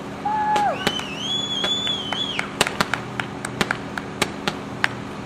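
A shout, then a long high whistle rising and held for over a second, followed by a run of scattered sharp clicks several times a second, over a steady low hum.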